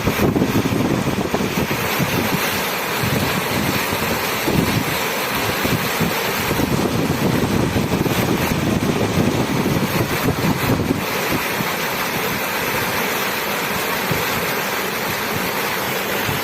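Running water rushing steadily, a dense roar of flowing water with the lower rumble rising and falling a little.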